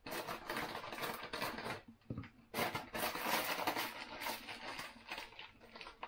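Plastic cracker packaging crinkling and rustling as it is handled, a dense crackle that dips briefly about two seconds in.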